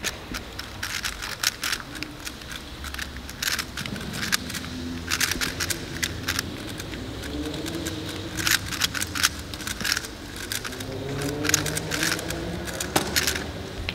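Plastic speedcube being turned fast, a rapid clatter of clicks in bursts with brief pauses between them. Faint voices murmur in the background.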